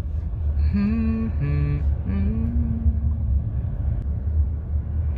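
A man humming a short wordless tune of three notes, the middle one lower and the last held for about a second, as improvised self-made background music. Under it runs the steady low rumble of a moving car's cabin.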